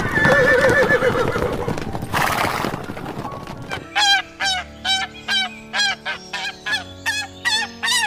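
A horse whinnies, one wavering call lasting about two seconds, amid the noise of galloping hooves. From about four seconds in, greylag geese honk in a quick series of about three calls a second, over low sustained background music.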